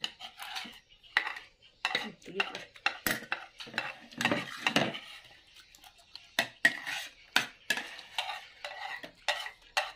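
Metal spoons scraping and clinking against plates as rice is scooped up, in a quick, uneven run of short clicks and scrapes.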